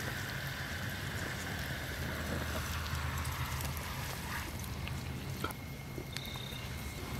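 Thickened gravy bubbling in a steel pot on a wood-burning twig stove, stopping about four seconds in when the pot is lifted off the flame. Under it, the stove's fire burns with a low steady rumble and a few small crackles.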